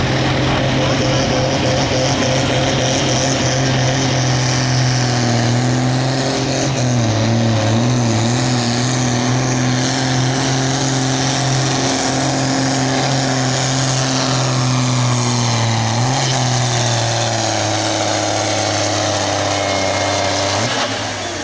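John Deere diesel tractor engine at full throttle under heavy load, pulling a weight-transfer sled. The engine note holds steady, wavers briefly twice, and drops in pitch and loudness near the end.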